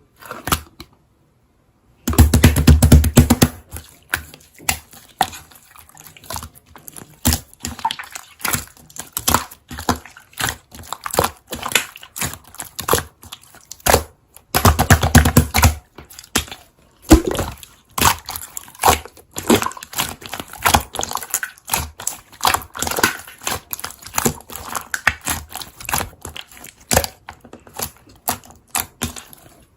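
Slime being squeezed and poked by hand, giving a fast, uneven run of crackling clicks and pops, with two louder, deeper squishes, about two seconds in and again about fifteen seconds in.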